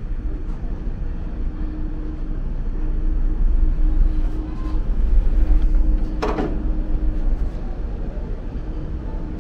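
Steady low rumble with a faint humming tone: a ferry's engines and machinery heard from inside the ship while it is underway. A brief clatter about six seconds in.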